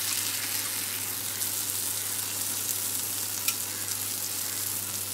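Masala-coated dried ribbon fish sizzling in shallow oil on a dosa tawa, a steady hiss, while a steel spatula scrapes under the pieces and turns them over. One sharp tap of the spatula on the pan comes about three and a half seconds in.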